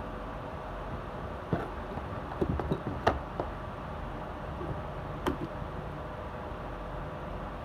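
A few short, sharp knocks or clicks: one at about a second and a half, a quick cluster around two and a half to three seconds, and one more past five seconds, over a steady background hiss and hum.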